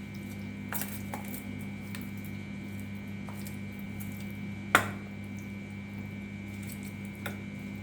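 Wet squishing of raw chicken pieces being mixed by hand in a yogurt-and-spice marinade, with a few light knocks and one sharper click a little past halfway. A steady low hum runs underneath.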